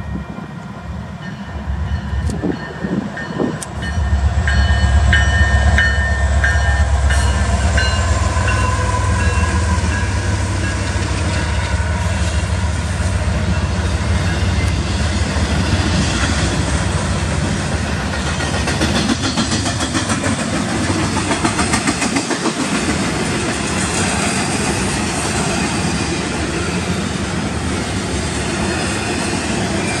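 A diesel freight train led by an EMD SD70ACe and two GE locomotives passes close by. A deep engine drone comes in suddenly about four seconds in as the locomotives go past. Double-stack container cars then roll by with a steady noise of wheels on rail.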